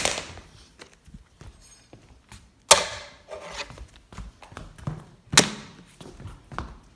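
Plastic Rubik's Cube dropped onto a surface three times, about two and a half seconds apart; each landing is a sharp knock followed by a short clatter as it bounces and settles.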